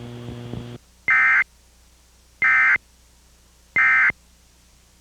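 Emergency Alert System digital header tones (SAME data bursts): three short, identical warbling bursts about 1.3 seconds apart, the end-of-message code that closes an EAS activation. A steady hum cuts off just before the first burst.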